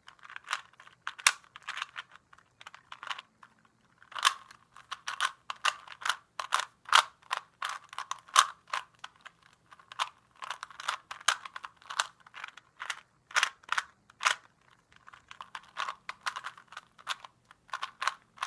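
Plastic Rubik's Cube layers being twisted by hand: quick irregular runs of clicking turns with brief pauses between them, as the white corners are solved.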